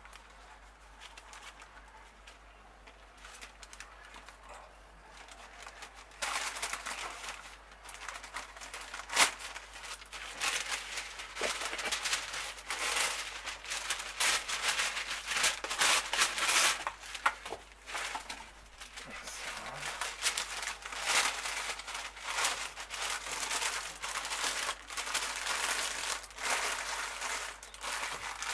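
Baking paper crinkling and rustling in irregular bursts as it is folded and pressed by hand around a roast, starting about six seconds in after a quieter stretch.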